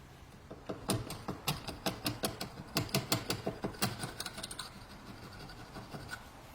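A rapid, irregular run of sharp mechanical clicks and taps, dense for about four seconds and then thinning out.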